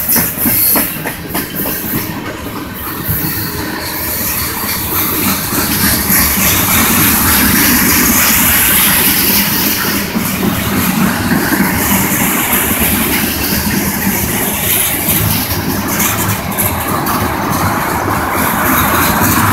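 Long freight train of tank cars and covered hopper cars rolling past close by: a steady, loud noise of steel wheels on the rails.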